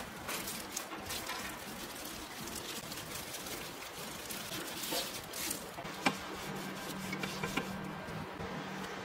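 Thin plastic food-prep gloves crinkling and rustling while gimbap is rolled by hand on a wooden cutting board, with small scattered crackles. A single sharp click about six seconds in, then a steady low hum.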